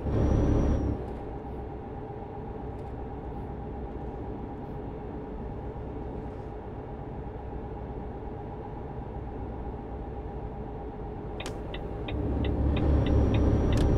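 A road vehicle driving, heard from inside: a steady low engine and road rumble that drops quieter about a second in and swells again near the end, with a quick run of light ticks just before it swells.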